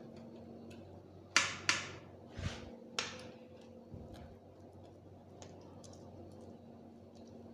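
Pizza cutter wheel pressing through a baked pizza on its tray: four short, sharp scrapes in quick succession about a second and a half in, the first the loudest.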